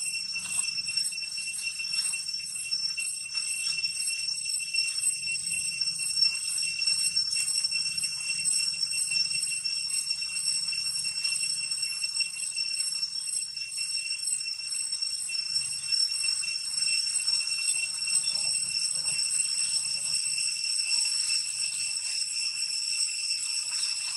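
Insects droning: a steady high-pitched whine on a few fixed pitches, pulsing a couple of times a second.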